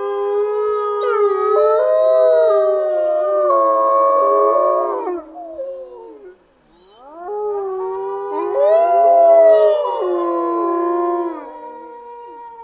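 A pack of wolves howling together, several overlapping howls at different pitches sliding up and down. The chorus drops away briefly about six seconds in, swells again, and trails off into a single long held howl near the end.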